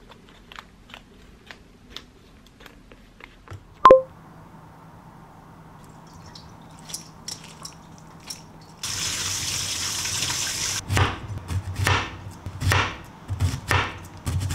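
Paper and a clear plastic ring binder being handled with light taps and rustles, with one sharp ringing click about four seconds in. Then water runs for about two seconds, and a kitchen knife chops through zucchini onto a wooden cutting board, about two cuts a second.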